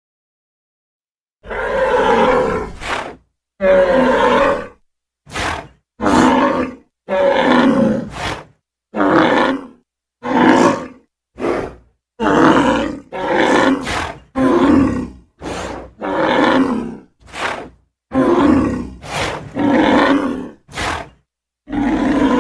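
A rapid string of dinosaur roar and growl sound effects: about eighteen short roars, each cut off cleanly and separated by brief silences, starting about a second and a half in.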